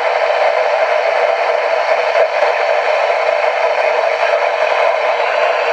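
Steady radio static: a loud, even hiss with little bass and no station audio, from a radio receiver between broadcasts.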